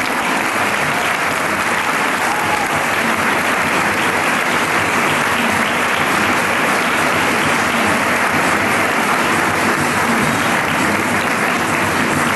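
Audience applauding: steady, dense clapping with no letting up.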